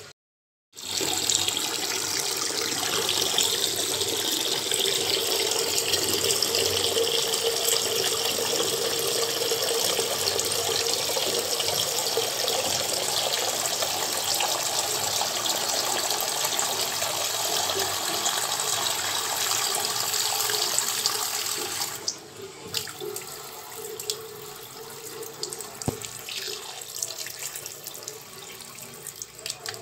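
Steady rushing of running water after a brief gap of silence at the start. It drops to a quieter, more uneven flow about 22 seconds in.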